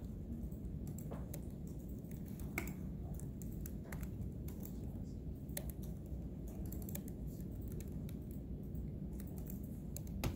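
Irregular clicks of a computer keyboard and mouse as someone works at a laptop, a dozen or so scattered taps over a steady low room hum.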